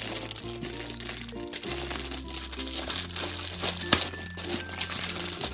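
Clear plastic bag crinkling as it is pulled open by hand, over light background music.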